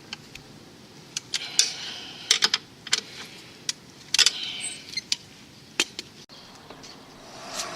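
Irregular sharp metallic clicks and clinks with a few short scrapes: tools and metal brake parts being handled and set down during the caliper work.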